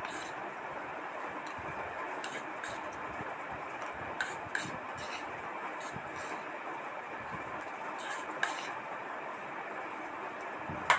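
Eating from a plate: scattered light clinks and scrapes of a utensil on a dish over a steady background hiss.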